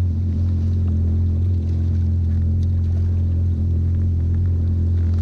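Jet ski engine idling steadily, a constant low drone with no change in speed, while the craft sits on the water during a fish fight.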